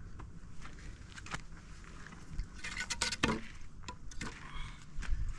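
Scattered light clicks, clinks and knocks of small hard objects being handled, with a short falling squeak about three seconds in.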